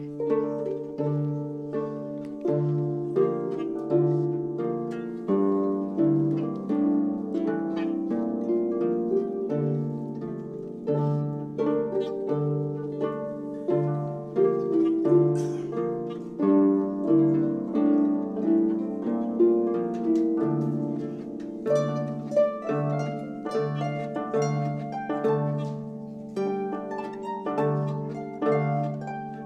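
An ensemble of harps playing together: plucked chords and melody that ring and fade over a low bass note repeated at a regular pulse.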